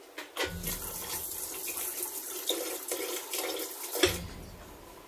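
Water running from a kitchen tap for about three and a half seconds, starting with a knock about half a second in and cut off with another knock a little after 4 s.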